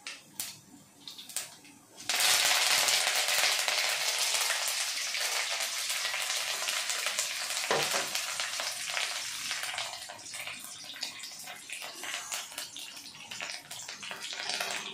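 Mustard seeds crackling in hot oil in a steel kadhai, then about two seconds in a sudden loud sizzle as chopped green chillies and curry leaves go into the oil, slowly dying down over the following seconds.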